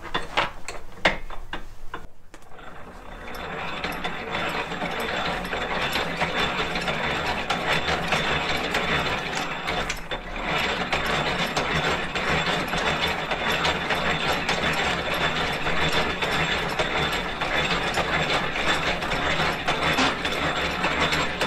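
Hand-cranked flywheel drill press being turned, its gearing and feed clicking rapidly and steadily as the twist bit cuts into a mild-steel hook. A few separate clicks come first, then the steady run begins about three seconds in.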